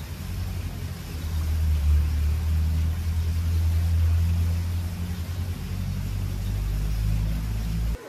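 Wind buffeting a phone's microphone outdoors: a steady low rumble that swells and eases, over a faint hiss.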